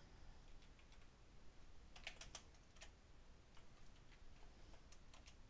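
Faint computer keyboard keystrokes: a few scattered clicks in small clusters, mostly in the second half, as a command is edited and a password typed.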